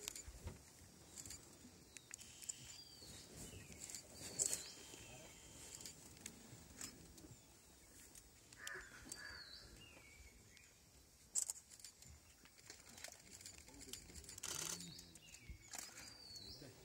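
Birds calling in dry forest, faint: a short, high, hooked call repeats every few seconds, with a few scattered soft clicks and knocks.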